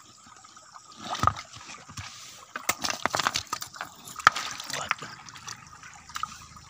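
River stones and pebbles being handled and shifted, with a run of sharp clacks of rock on rock, loudest about a second in and again about four seconds in, over a light trickle of water.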